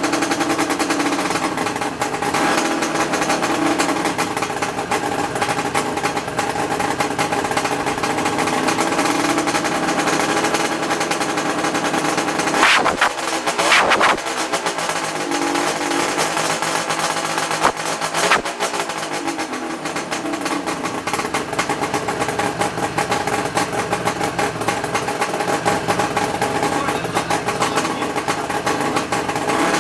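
1975 Suzuki GT550's air-cooled two-stroke three-cylinder engine running, revved up and back down a few times around the middle.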